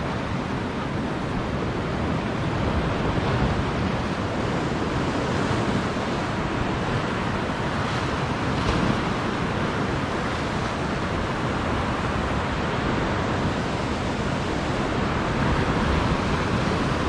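Ocean surf breaking and washing against a rocky lava shoreline: a steady rushing that swells a little as each wave comes in.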